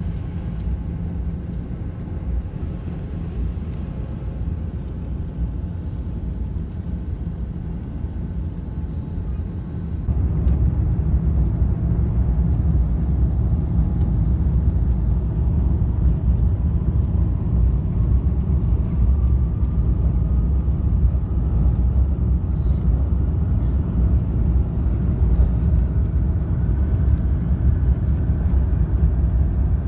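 Cabin noise of an Airbus A350-1000 with Rolls-Royce Trent XWB engines, heard from a window seat over the wing: a steady low rumble while taxiing, which about ten seconds in turns suddenly louder. A whine then rises slowly in pitch as the engines spool up to takeoff thrust for the takeoff roll.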